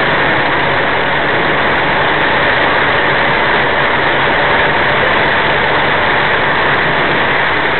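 Steady engine drone and hiss of tyres on a wet road, heard inside a truck cab while driving.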